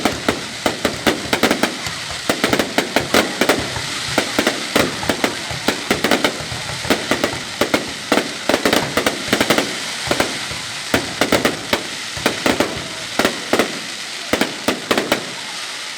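Fireworks going off: a dense, irregular run of sharp pops and crackles, several a second, over a steady crackling hiss.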